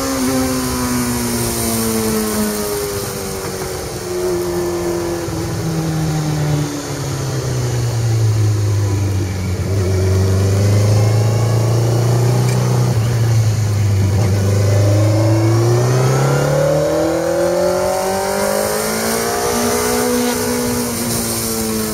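Kawasaki Z1000's inline-four engine heard from the rider's seat as the bike slows hard for a tight bend: the engine note falls in steps, runs low through the bend, then climbs steadily as it accelerates out, with wind rushing past.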